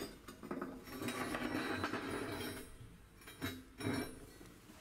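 Steel weld test pieces being handled and set down: light metal clinks, a stretch of scraping handling noise, then two sharper knocks about three and a half seconds in.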